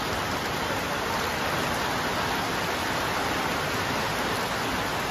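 A heavy rain shower falling steadily on a wet concrete terrace, an even, dense hiss of drops.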